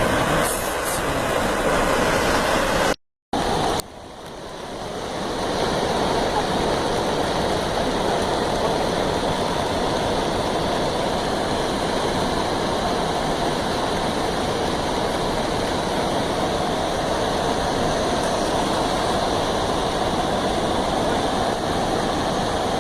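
Waterfall's falling water making a steady rush. It cuts out for a moment about three seconds in, then swells back up over a couple of seconds.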